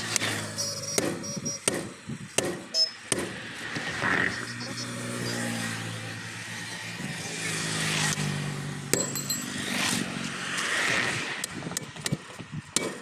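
Hand sledgehammer striking a tyre lever at a tractor rear tyre's bead, a run of sharp metallic knocks in the first few seconds and a few more near the end, as the bead is broken from the rim. Between the blows a vehicle engine hum rises and falls.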